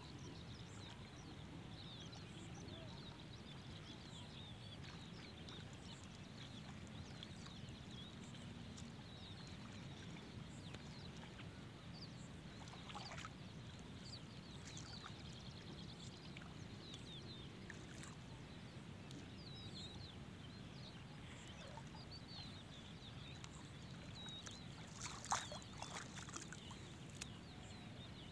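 Steady sloshing of legs wading through shallow water, with many short, high bird calls scattered through it. A single sharp click stands out near the end.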